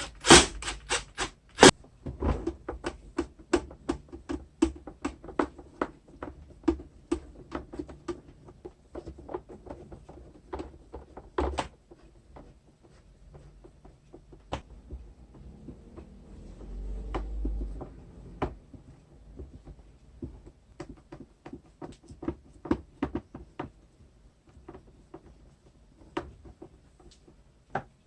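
Series of sharp clicks and knocks from the vacuum cleaner's plastic parts being handled and fitted together, with a brief low rumble a little past the middle.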